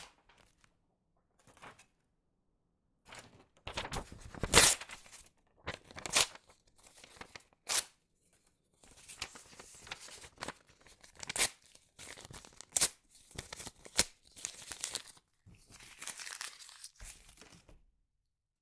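Notebook paper being torn and crumpled: a series of short, crisp tearing and crinkling strokes with brief pauses between, some longer rustles among them, stopping near the end.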